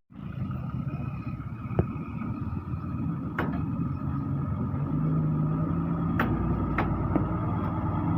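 A motor vehicle's engine running steadily, with a few sharp clicks or taps over it.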